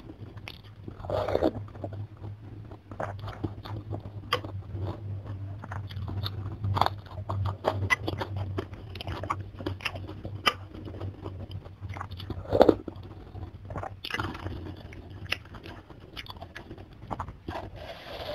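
Close-miked eating sounds from a bowl of chicken soto with glass noodles: chewing, wet mouth smacks and crunches, and louder slurps of noodles and broth about a second in and again near the end.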